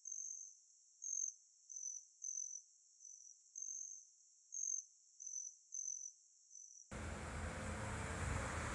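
Cricket chirping: about ten short, high chirps at uneven intervals. At about seven seconds it cuts abruptly to steady outdoor background noise with a low rumble and hiss.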